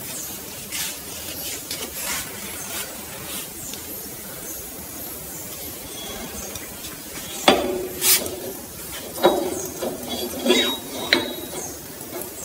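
Metal parts of a truck axle hub clinking and knocking as they are handled, with a few sharp clinks that ring briefly in the second half.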